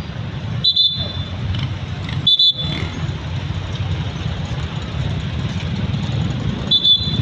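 Low, steady rumble of motor-vehicle traffic, broken three times by short, loud, high-pitched beeps: near the start, about two and a half seconds in, and near the end.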